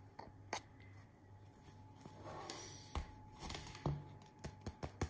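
Fingers tapping the crust of a freshly baked homemade baguette, after a brief rustle as the loaf is handled; a quick run of light taps starts about four and a half seconds in. The taps check the bake: the sound means the bread is well cooked.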